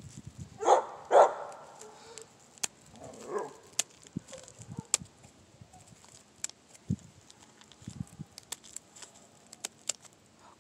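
Scissors snipping a hen's wing feathers: a scattered series of sharp clicks. Two short loud animal calls come about a second in, and a weaker one at about three seconds.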